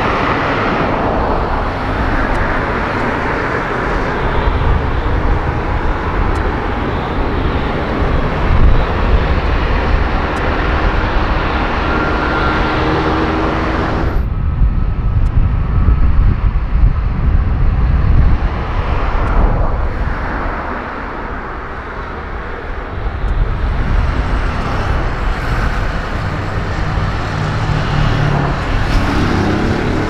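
Jet airliner turbofan engines running with a loud, steady rush and low rumble. About halfway through, the high-pitched part of the noise drops away abruptly. Near the end, a low droning set of tones comes in.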